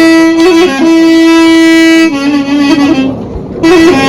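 Music: a single melody of long held notes with small ornamental turns, dropping to lower notes about halfway through and pausing briefly near the end.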